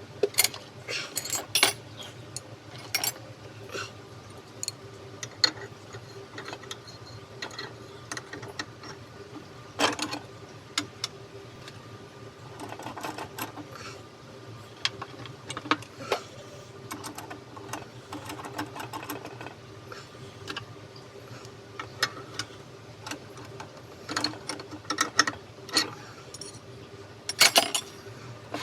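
Irregular clicks, taps and clinks of small metal parts and hand tools being handled, over a steady low hum.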